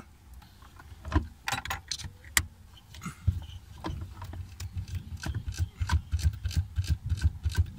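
Hands working on a BMW E65 electronic park brake actuator: scattered small clicks and taps of its plastic and metal parts, becoming a quicker run of light clicks in the second half.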